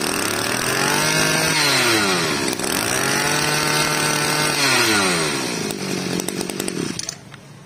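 Small Robin 22cc brush-cutter engine running: it is revved up from idle twice, each time held high for a second or two and let back down, then idles briefly before cutting off about seven seconds in.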